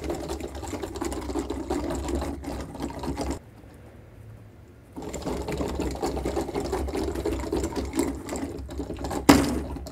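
Two small 3D-printed plastic walking robots running: a rapid, steady mechanical whirr and rattle of their walking mechanisms, with quick plastic clicks as the legs step. It stops for about a second and a half around the middle and starts again, with a sharp knock near the end.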